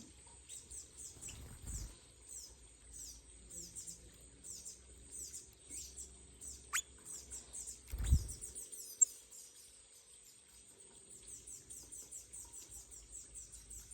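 Birds chirping: rapid series of short, high, downward chirps repeated throughout, with a low thump about eight seconds in.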